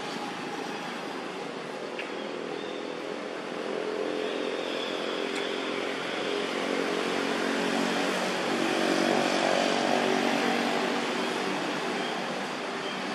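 A small engine running steadily in the background, growing louder to a peak about nine seconds in and then easing slightly.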